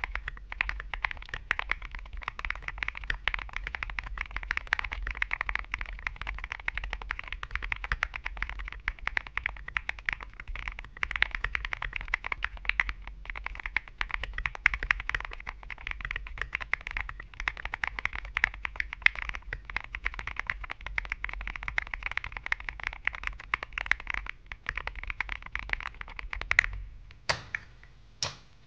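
Fast, continuous typing on a Neo 80 mechanical keyboard with Aqua King V3 linear switches, a PC plate and SA-profile keycaps. The typing ends with a few separate, louder keystrokes near the end.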